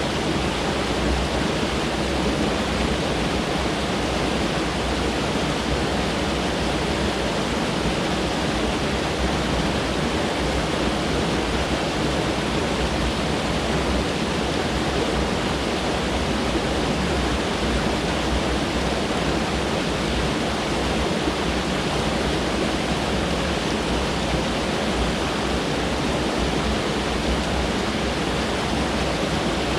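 Mountain stream rushing over rocks: a steady, even roar of water with no pauses.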